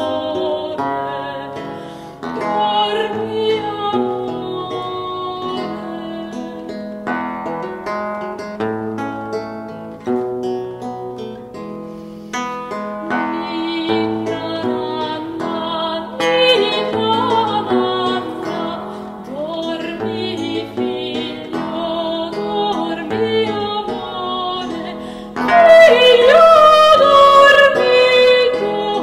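Soprano singing with a theorbo accompanying in plucked notes and chords. The voice is loudest in the last few seconds.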